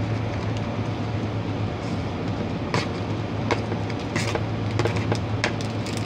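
A metal spoon clicking and scraping against plastic containers as spring onions are pushed into a tub of broth: a handful of sharp clicks over a steady low hum.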